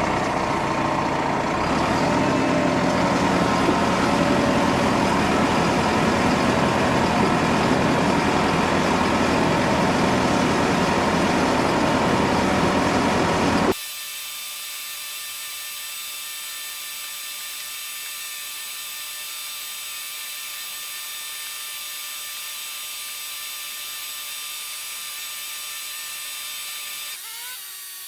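Fendt tractor's diesel engine running steadily under way, then an abrupt cut about halfway through to a quieter, steady machine whine with several high tones.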